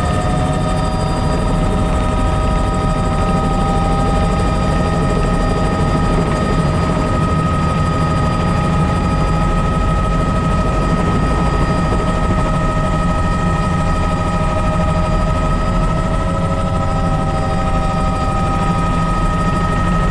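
Bell 206 JetRanger helicopter in flight, heard from inside the cockpit: the steady whine of its Allison 250 turbine, several high tones held level, over a dense rumble of rotor and airflow.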